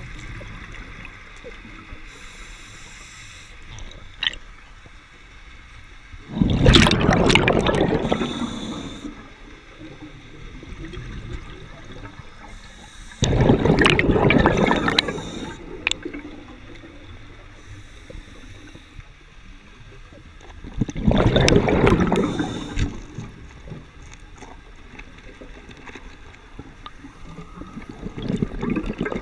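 Scuba regulator breathing underwater: four long bursts of exhaled bubbles, about seven seconds apart, the last near the end.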